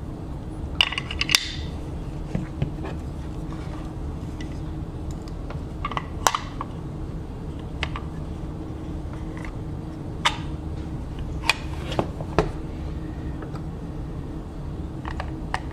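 Scattered sharp clicks and knocks, about ten in all, as the plastic housing of a Singer 15-91 sewing machine foot pedal and its parts are handled and fitted together, over a steady low background hum.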